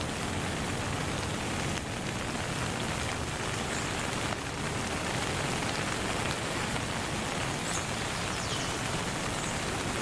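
Steady rain falling, an even hiss, with a few faint high chirps now and then.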